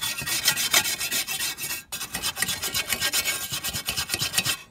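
Twisted-wire steel brush scrubbed rapidly back and forth over the steel blade of a 1945 US military folding spade, a dense scratching rasp with a brief pause about two seconds in. The brush is stripping the fire-scorched surface back to bare steel before the blade is seasoned with oil as a pan.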